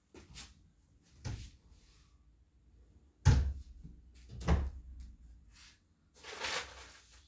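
A few dull knocks and thumps, the loudest about three seconds in, then a short rustle near the end.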